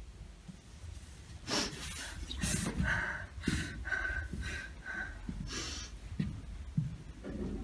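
A young woman sobbing in an acted stage scene: sharp gasping in-breaths, with a run of about five short, high whimpers a few seconds in.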